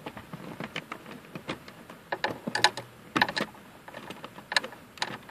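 Small palm ratchet clicking in short, irregular runs while a bolt in the plastic lower dash panel is worked loose.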